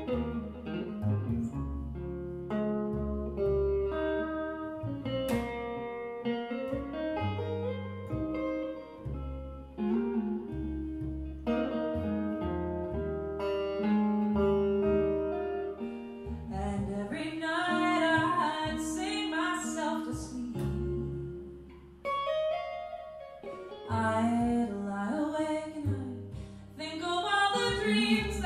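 Live band music: electric guitar and plucked upright double bass playing, with a woman's singing voice coming in about halfway through, breaking off briefly, and returning near the end.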